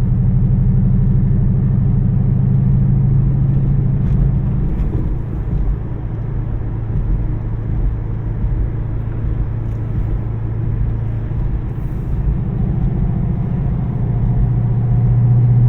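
A high-mileage car's engine and road noise while driving at a steady pace; the engine note eases off about a third of the way through, then rises near the end as the car accelerates.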